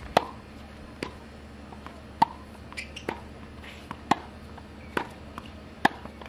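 Tennis ball being hit back and forth in a rally: sharp racket-on-ball pops about once a second, alternating louder and softer, over a faint steady hum.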